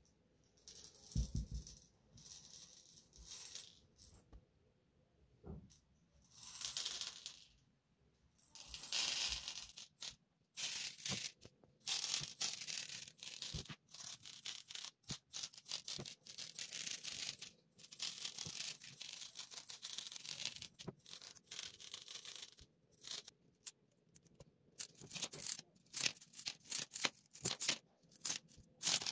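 Fine gravel poured from a glass jar in long hissing runs, the grains rattling out of the glass and landing on the resin tabletop. Near the end, small seashells tip out of a jar with a quick run of sharp clicks.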